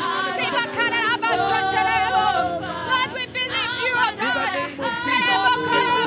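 Worship singing: several voices sing with wavering, gliding pitch over long held notes.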